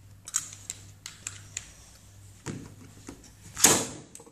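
Hard plastic Beyblade parts and launcher clicking and knocking as they are handled, a scattering of sharp clicks. About three and a half seconds in comes one louder, brief rasping rush.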